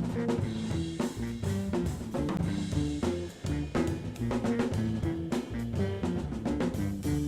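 Jazz band playing, with a drum kit keeping busy time under low pitched notes that move in quick steps.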